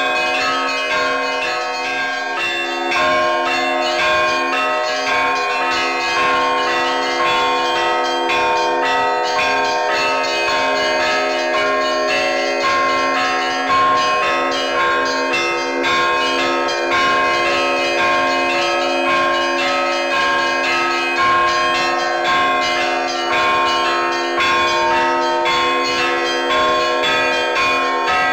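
Russian Orthodox monastery church bells rung in a continuous peal: many bells struck in quick succession, their tones overlapping and ringing on without a break.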